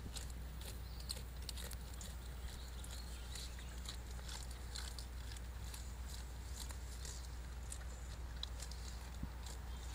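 Black bears foraging: faint, scattered small clicks and crackles, like twigs and vegetation being stepped on or chewed, over a steady low hum.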